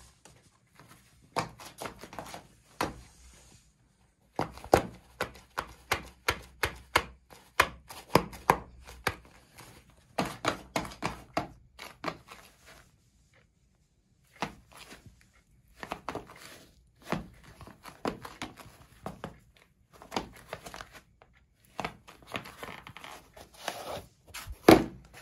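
Footsteps of rubber-soled knit sneakers on a ceramic tile floor: quick, irregular taps and scuffs in runs, with two short pauses.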